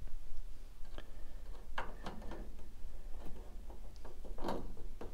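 Several small clicks and knocks, irregularly spaced, from fitting a small retaining plate back onto the lower end of a hood gas strut by hand; the loudest come about two seconds in and near the end.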